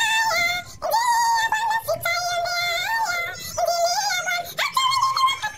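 A very high-pitched singing voice carrying a tune in short phrases, with brief breaks between them.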